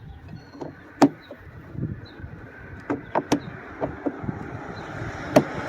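Plastic clicks and knocks from a Kia Optima engine air filter being pushed into its plastic airbox housing until it seats. A rushing noise builds near the end.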